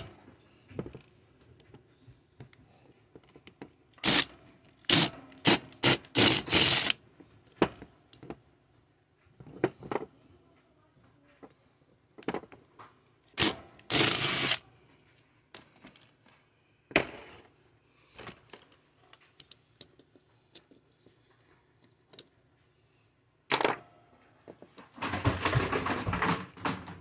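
Metal hand tools and engine parts knocking, clattering and scraping on a workbench as bolts are worked out of a chainsaw engine's cylinder: a string of sharp separate knocks, with a longer rattling stretch near the end.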